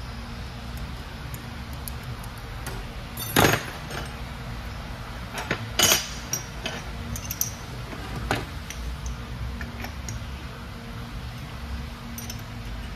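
Steel transmission parts clinking and clanking as they are handled inside and around the gearbox case, with two louder clanks about three and a half and six seconds in and a few lighter clicks after. A steady low hum runs underneath.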